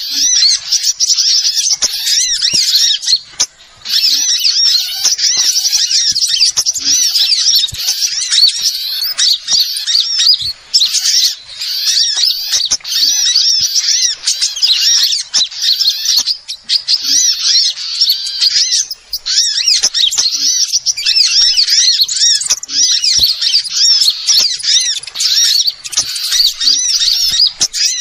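Bird-lure recording of many small birds chattering together: a dense, loud run of rapid high-pitched chirps and trills. These are the agitated calls of small birds such as sunbirds, played to draw them in. It breaks off briefly about three and a half seconds in, again near the middle, and a little after two-thirds of the way through.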